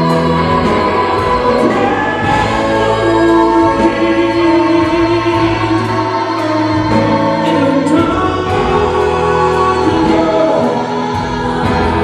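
Live rock band playing a slow ballad, with gospel-style backing singers holding long notes over the band.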